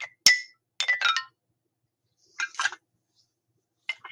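Xylophone notes struck in short groups, each ringing briefly: a single note, then a quick run of four or five about a second in, another small cluster midway, and two more near the end.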